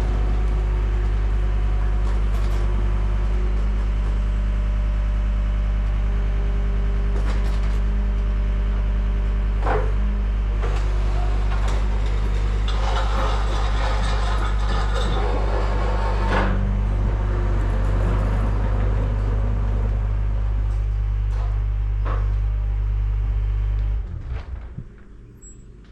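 A motor running with a steady low hum, with scattered knocks and a clattering, rustling stretch in the middle. The hum cuts off suddenly about 24 seconds in.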